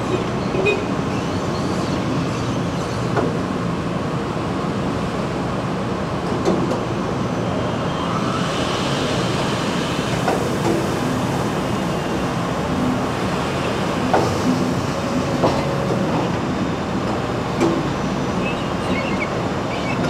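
Packhouse bin-handling machinery running steadily: powered roller conveyors moving plastic fruit bins, with scattered clanks and knocks.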